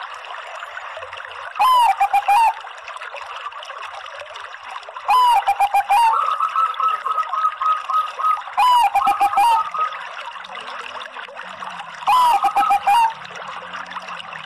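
Zebra dove (Bangkok-type perkutut) singing its cooing phrase four times, about every three and a half seconds. Each phrase is a first note that rises and falls, followed by a quick run of three or four short coos. A steady trickling-water sound runs underneath.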